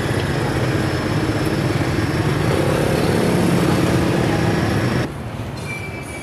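Street traffic noise with a motor vehicle engine running close by, a steady low hum under a dense roar. It cuts off abruptly about five seconds in, leaving quieter background.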